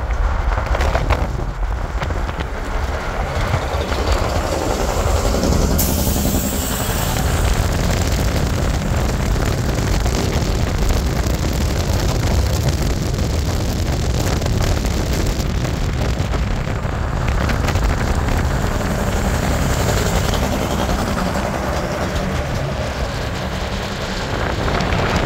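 Heavy diesel semi truck descending a steep grade on its engine brake: a loud, steady, rapid staccato rattle from the exhaust that carries on as the truck passes close by.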